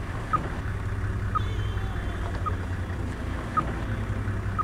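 VHF radio-tracking receiver beeping: short, high beeps a little over a second apart, the pulsed signal from a radio-collared animal picked up through a handheld Yagi antenna. Under it runs a steady low rumble.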